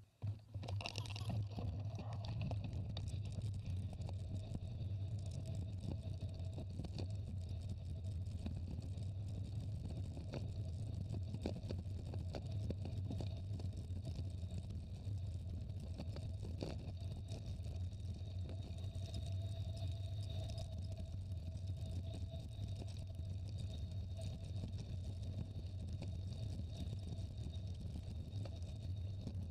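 Wind buffeting the microphone of a moving camera and mountain-bike tyres rolling on a gravel road: a steady low rumble that starts suddenly.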